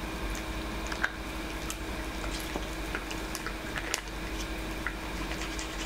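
Toothbrush scrubbing a dog's teeth: wet squishing with scattered small clicks at uneven times, over a steady low hum.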